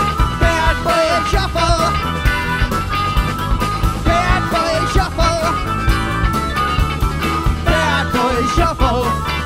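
Live rock band playing an instrumental passage: steady drums and bass under a lead instrument bending and wavering its notes.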